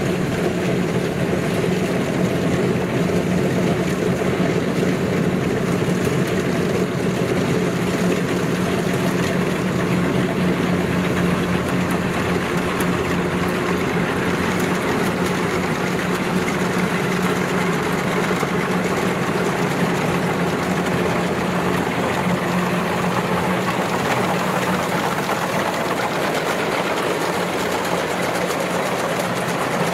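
Kubota rice combine harvester running steadily while it cuts and threshes rice in a wet paddy: a loud, unbroken engine drone.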